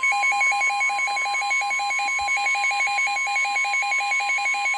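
NOAA Weather Radio 1050 Hz warning alarm tone, one steady tone, the alert signal that comes before a broadcast warning message. Over it a second electronic alarm beeps rapidly, about eight beeps a second, with a warbling high edge.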